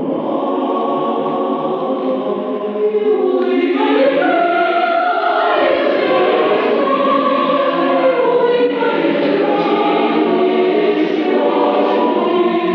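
A choir singing in several parts, holding notes that move in pitch with no pause.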